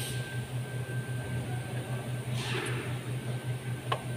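A steady low machine hum, pulsing a few times a second, with a brief rustle and then a single sharp click near the end as an ignition coil is pressed down onto a spark plug in the engine's cylinder head.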